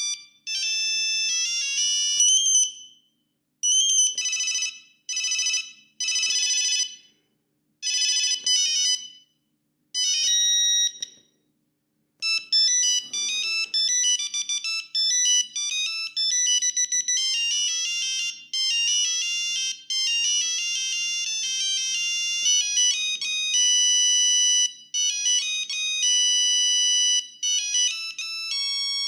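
Siemens S35 mobile phone playing monophonic beeping ringtone melodies through its small speaker. A tune in short repeated phrases with brief silences gives way about twelve seconds in to a faster, continuous tune.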